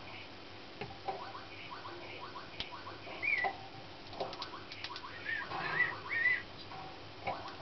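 Young Slavujar (nightingale-type) song canary singing: phrases of short repeated chirps, a quick run of clicks about four seconds in, and slurred up-and-down whistled notes around the middle and again toward the end.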